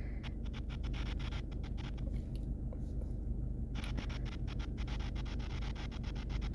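Stylus tip tapping and scratching rapidly on a phone's glass screen in short, quick strokes while filling in a small area. The strokes come as many quick ticks a second, with a pause of about a second in the middle.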